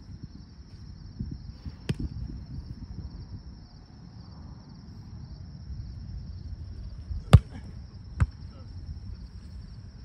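Sharp slaps of a volleyball being struck by hand: one about two seconds in, then two louder ones about a second apart near the end. Under them are a steady high insect chirring and wind rumbling on the microphone.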